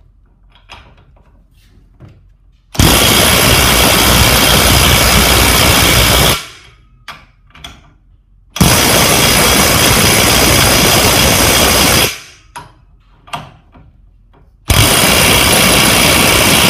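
Hitachi WR18DBDL2 18V brushless half-inch cordless impact wrench hammering on a bolt already tightened to about 400 newton metres, in three runs of about three and a half seconds each with short pauses between; the bolt turns only very slightly further.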